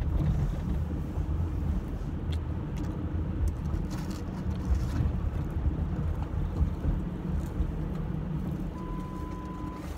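Steady low road and engine rumble of a moving car, heard from inside the cabin. A few faint clicks, and a short steady high tone about a second long near the end.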